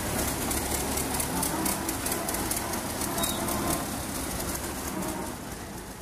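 Belarus tractor's diesel engine running as the tractor drives along a paved lane, a steady rumble with a fast clattering rhythm that fades slightly near the end.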